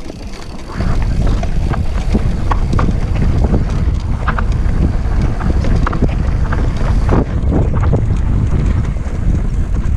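Wind buffeting the microphone as a mountain bike rolls downhill, with a loud low rumble that rises sharply about a second in. Scattered clicks and knocks from the tyres and bike over the rock sound on top.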